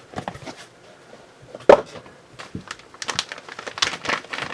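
Plastic packaging being handled: crinkling and light clicks, with one sharp knock about two seconds in.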